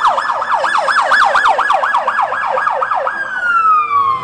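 Police car siren in a fast yelp, its pitch rising and falling about four to five times a second. About three seconds in it changes to a single long falling wail.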